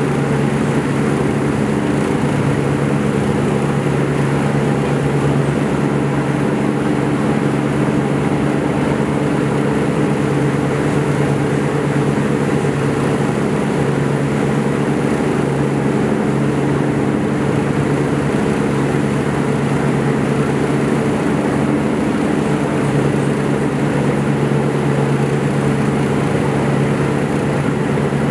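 Jet engines of an Airbus A320-family airliner climbing out after takeoff: a steady, low rumble that holds level without fading.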